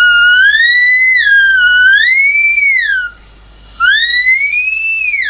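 Brazing torch tip whistling, its pitch rising and falling over two long stretches with a short break near the middle. The welder suspects something is lodged in the tip.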